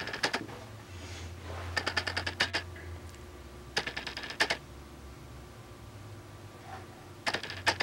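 Four short bursts of rapid mechanical clicking, each lasting under a second, over a faint low hum.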